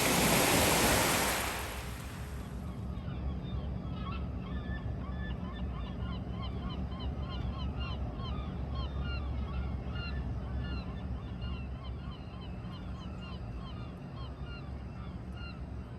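A wave washes in at the start, then a flock of birds calls on and on, many short overlapping calls, over a steady low rumble of wind and water.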